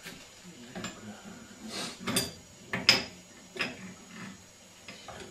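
Steel tongs clinking and scraping against steel gear blanks and the furnace opening as the blanks are loaded into a heat-treatment furnace. A handful of short, sharp metallic clinks, the loudest about three seconds in.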